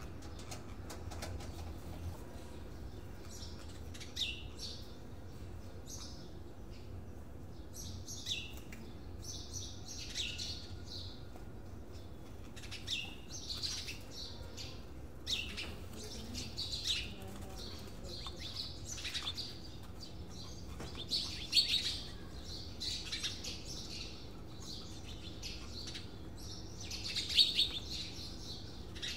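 Small birds chirping in short, scattered calls that often slide down in pitch. They come more often as it goes on and are loudest about three-quarters of the way in and again near the end, over a faint steady low hum.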